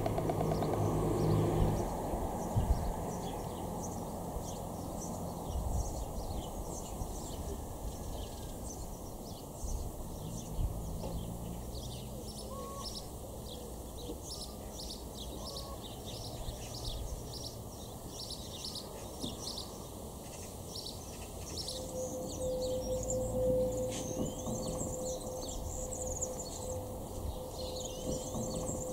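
Outdoor ambience: small birds chirping in short, scattered calls over a low rumble. A steady hum comes in about three-quarters of the way through.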